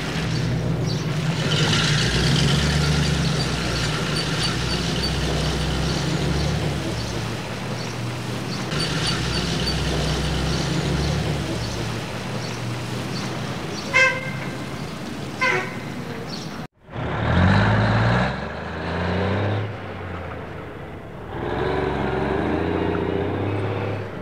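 Heavy truck engine running steadily, with two short horn toots about two-thirds of the way through. After a brief dropout, the engine revs up and falls back twice.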